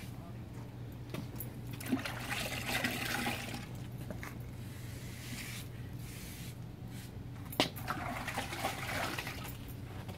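Water trickling and splashing as a wet sponge is worked with water from a bucket, in two bouts a few seconds apart, each starting with a sharp knock. A steady low hum runs underneath.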